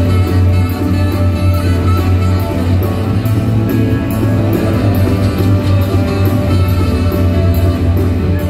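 A live rock band playing loudly over a concert PA, with a heavy bass line and a steady beat of cymbal hits.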